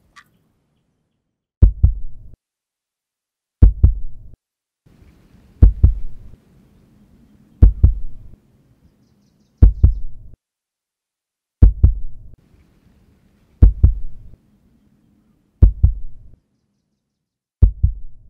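Deep double thumps in a slow heartbeat rhythm, eight beats about two seconds apart, each a quick pair of strikes with a short fading tail.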